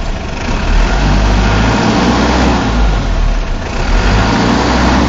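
Truck engine revving as the accelerator pedal is pressed and released, the engine note rising and falling back several times.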